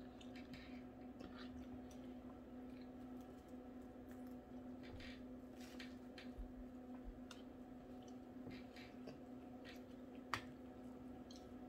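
A person eating, with quiet chewing and scattered small mouth clicks and smacks over a steady low hum.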